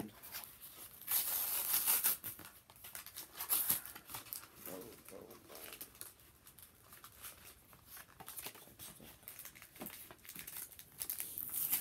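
Pokémon card-pack packaging crinkling and tearing as it is opened by hand, with many small crackles. The loudest rustling comes about a second in and again just before the end.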